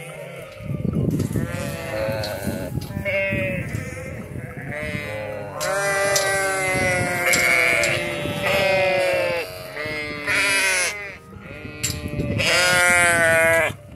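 Several sheep bleating over and over, their calls overlapping at different pitches: a flock calling for grain.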